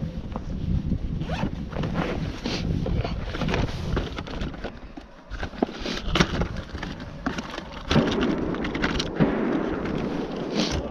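Close handling noise as a box of shotgun shells is picked up and handled: rustling and scraping with scattered sharp clicks and knocks, the sharpest about six and nine seconds in.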